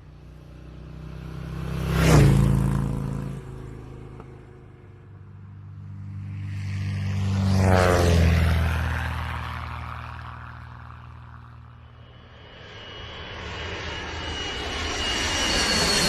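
Engine sound of an aircraft flying past: it swells and fades twice, the pitch dropping as it goes by, and builds up again near the end.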